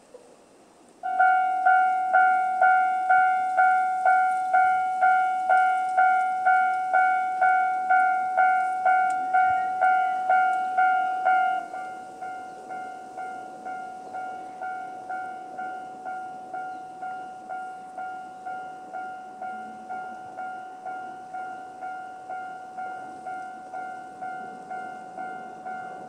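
Japanese level-crossing electronic warning bell starting about a second in, a repeated metallic "kan-kan" ding at about two strikes a second. About eleven seconds in it drops to a much quieter level with the same rhythm: the volume reduction Japanese crossings apply once the barriers are down.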